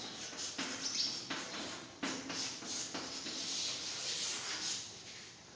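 Chalk writing on a chalkboard: a quick, irregular run of short scratches and taps as a line of a formula is written.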